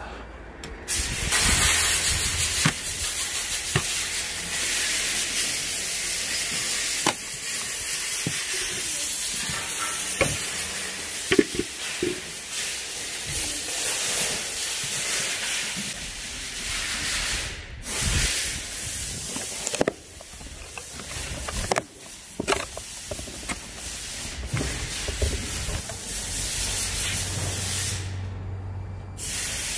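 Compressed air hissing from a blow gun in long blasts, cutting off briefly a few times, with a few knocks in between.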